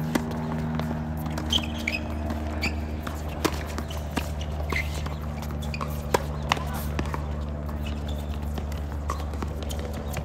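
Tennis balls struck back and forth in a doubles rally: sharp racket hits and ball bounces on a hard court, with players' footsteps, over a steady low hum.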